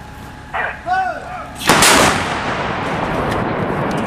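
A truck-mounted howitzer firing once, a little under two seconds in: a single loud blast followed by a long rolling echo. A short shouted call comes just before the shot.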